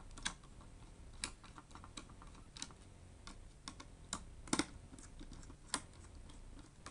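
Irregular light clicks and taps of small plastic and metal laptop parts and tools being handled, with louder knocks about four and a half and almost six seconds in.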